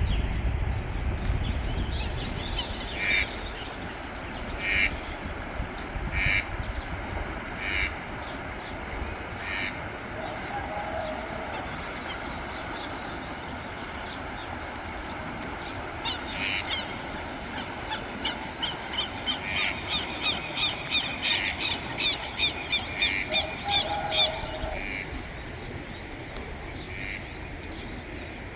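Southern lapwings (quero-queros) calling outdoors: single harsh, strident calls a second or two apart, then a fast run of repeated calls near the end. Two short lower calls come in about 11 seconds in and again later.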